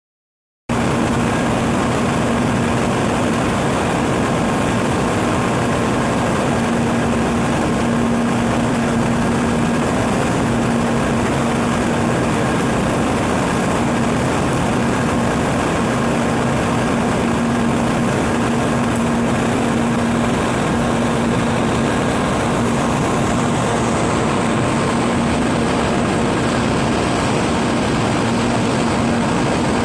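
Steady, unchanging hum and whir of a Shinkansen bullet train's equipment: a constant low tone with fainter higher tones over even mechanical noise, with no rise or fall in pitch.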